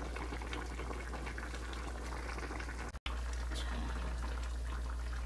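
Pork backbone stew bubbling at a boil in a pan, with many small pops and crackles over a steady low hum. The sound drops out for an instant about three seconds in.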